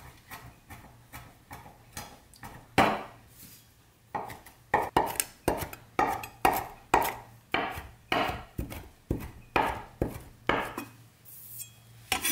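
Chef's knife chopping fresh herbs on a wooden chopping board: a run of knife strikes on the wood, about two a second, lighter at first and louder and more regular from about four seconds in.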